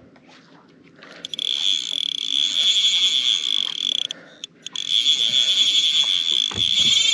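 Fly reel drag buzzing as a hooked fish pulls line off the spool, in two runs, the first starting about a second in and the second after a short pause about four seconds in.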